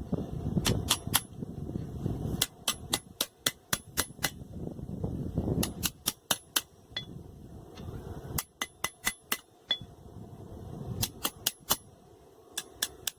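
Hand hammer striking a hot steel blade, forged from an old wrench, on an anvil, in quick bursts of several ringing blows with short pauses between, as the bevel and tip are forged in. A low rushing noise rises and falls in some of the gaps.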